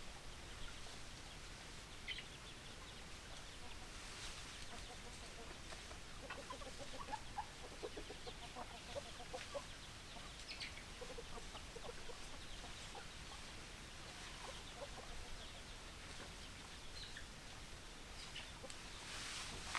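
Hens clucking: a run of short, low clucks through the middle, with a few higher short calls, over a steady background hiss.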